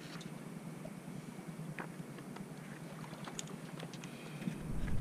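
Gentle water lapping against shoreline rocks, a soft steady wash with scattered faint clicks. A low rumble builds on the microphone near the end.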